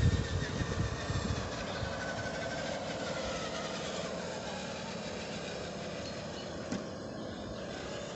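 Drive motor and gearbox of a radio-controlled 6x6 scale DUKW amphibious truck whining as it drives along a path, the pitch drifting as its speed changes. Low rumbling thumps sit under it near the start.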